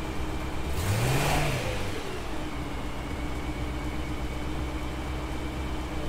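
BMW E92 M3's 4.0-litre V8 idling, blipped once about a second in, the revs rising and falling back within about a second. The idle is lumpy: the cylinder 6 misfire is still there after new ignition coils and spark plugs.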